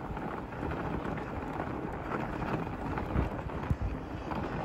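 Steady low noise of a fat bike being ridden over a snowy trail: wind buffeting the microphone over the rolling of the wide tyres on snow, with a few faint knocks.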